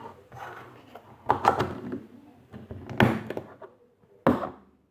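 Plastic slime containers being handled: a few sharp knocks and clatters, the loudest about three seconds in and the last just past four seconds.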